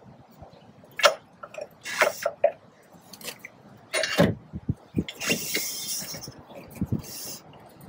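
Irregular metal clinks and knocks from hardware and tools being worked on a roof rack as a mounted wheel is taken off, with a rasping scrape lasting about a second near the middle.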